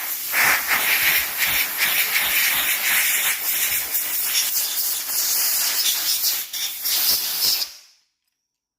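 Compressed-air blow gun hissing steadily, blowing dust and water out of a motorcycle fuel part. It cuts off suddenly near the end.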